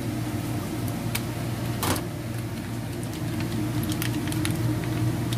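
Kitchen scissors snipping through a plastic packet with one sharp snap, then the light crinkle and clicks of the plastic bag being handled and squeezed. A steady low hum runs underneath.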